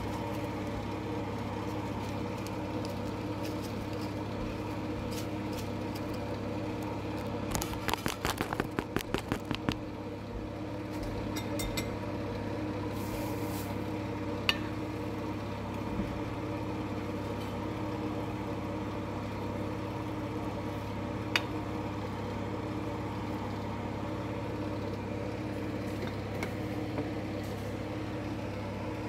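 Steady low machine hum, with a quick run of about a dozen sharp taps lasting about two seconds about a quarter of the way through and a few single clicks later.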